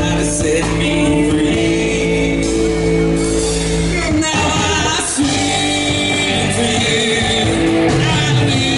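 Live rock band playing: a male singer with electric guitars, bass and drum kit, amplified through a PA.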